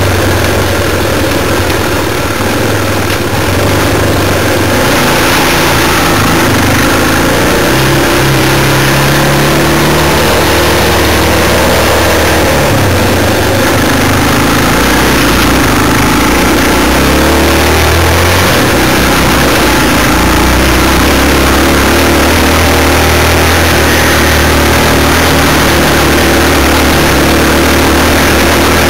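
Trail motorcycle engine running under a rider, its note rising and falling with the throttle, with a steady rush of wind and rattle over the rough track.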